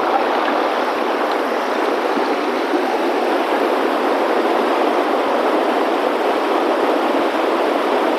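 Mountain stream rushing over rocks: a steady, even wash of water noise.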